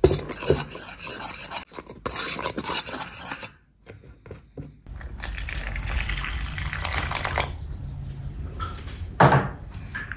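Spoon stirring and scraping a dry flour mixture with a little oil around a mixing bowl, in two stretches with a short pause between, then a single knock about nine seconds in.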